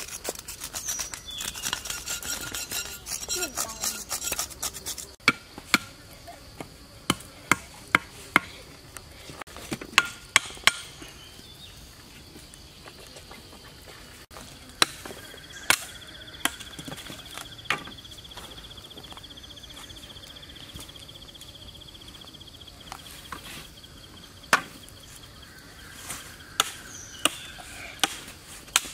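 Sharp, irregular chopping knocks on wooden and bamboo stakes, as a spit frame is cut and set up over a campfire; the first few seconds hold a rapid run of smaller clicks and scrapes. An insect buzzes steadily for several seconds midway.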